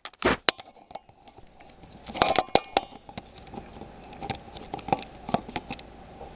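Irregular knocks and clicks of handling noise close to the microphone. There is a loud thump right at the start, a cluster of sharp clicks about two seconds in, and softer scattered taps after that.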